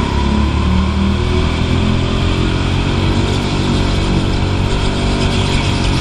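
Rental go-kart's small engine running steadily under power, heard close up from a camera mounted on the kart as it laps the track.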